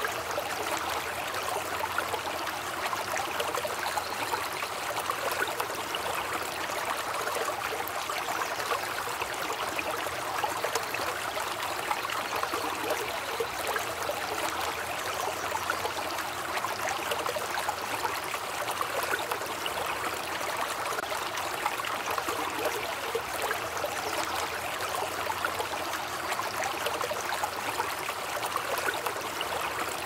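Running water, a stream trickling and splashing steadily without a break.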